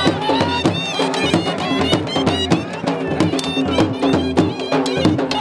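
Traditional folk music with fast drumming under a melody that bends in pitch over a steady held drone.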